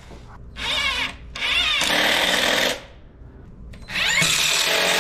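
Cordless drill driving wood screws through the top board into a wooden bench frame, in three runs. Each run rises and falls in pitch, and the last is the longest.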